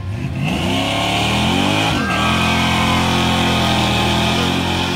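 Chevrolet El Camino's engine revving hard through a burnout, rear tyres spinning. The engine note climbs for about two seconds, dips briefly, then holds high and steady before easing off near the end.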